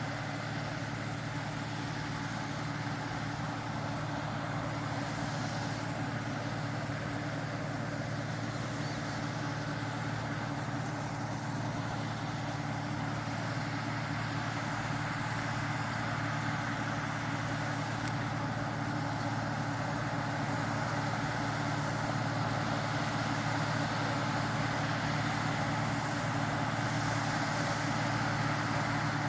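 Claas Dominator 106 combine harvester running steadily at an even pitch, gradually getting a little louder over the last third.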